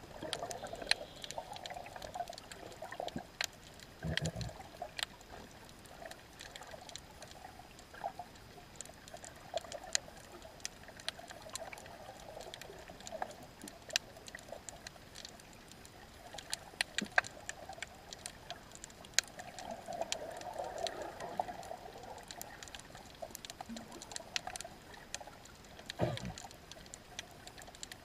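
Underwater ambience at a camera on a sandy bottom: a low wash of water surge with irregular sharp clicks and crackles throughout, and a couple of dull thumps, one about four seconds in and one near the end.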